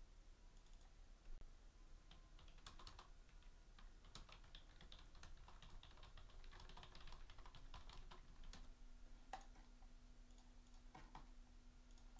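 Faint typing on a computer keyboard, irregular clusters of key clicks over a low steady hum.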